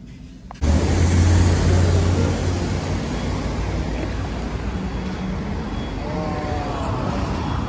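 Street traffic noise that starts abruptly about half a second in, with a nearby vehicle engine's low drone strongest for the first couple of seconds over the steady noise of passing cars.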